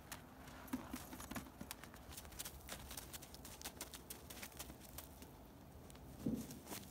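Miniature pony's hooves crunching in snow as it walks, faint scattered clicks, then a low thump about six seconds in as it drops down to roll.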